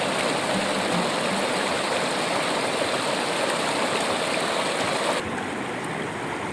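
Steady rush of running water. About five seconds in it drops abruptly to a slightly quieter, duller rush.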